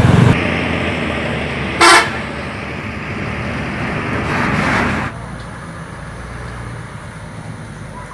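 Coach buses driving past: steady engine and road noise with one short horn toot about two seconds in. About five seconds in the noise drops to a quieter steady engine hum.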